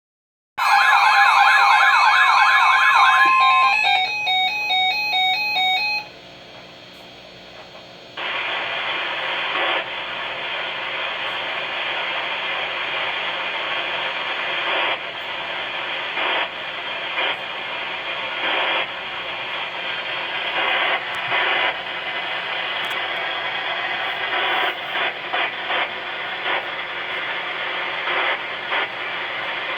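Electronic warbling, siren-like tones for about three seconds, then a run of short repeated beeps. After a brief quiet gap, steady radio static hisses from about eight seconds on, with brief louder crackles: dead air where the Special Marine Warning failed to come through on the weather radio.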